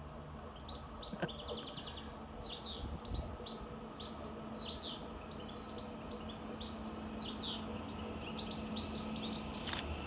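Small birds singing and chirping repeatedly, with quick trills, over a faint steady hum that slowly grows as a Class 331 electric multiple unit approaches. There is a single sharp click near the end.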